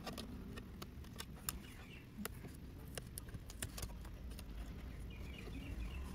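Scattered faint clicks and small taps of fingers working the small plastic and metal parts inside a mini-PC's metal case, unclipping the microphone array and its thin wires.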